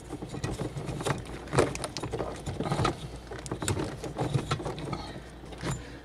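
Irregular knocks, clatters and rustling from things being handled in the cabinet under a kitchen sink, while reaching for the dishwasher's water shut-off.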